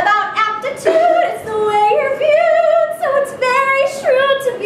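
A woman singing, holding short notes that step up and down in pitch.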